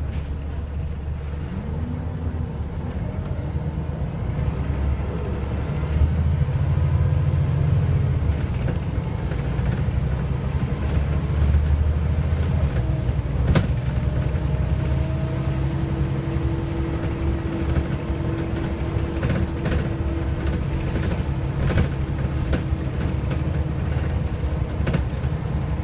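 Scania L94UA articulated bus's diesel engine and drivetrain heard from inside the passenger saloon while under way: a deep drone that grows louder about six seconds in. A steady whine joins about halfway through, and short clicks and knocks come in the second half.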